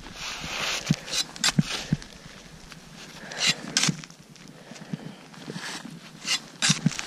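Crampons kicking into steep snow and ice-axe placements while downclimbing: irregular crunching knocks in small clusters over a soft rustling hiss.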